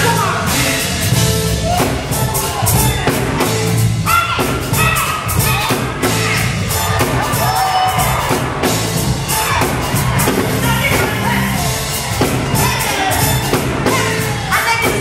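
Live gospel music: a vocal group singing over a band, with a drum kit keeping a steady beat of sharp strokes.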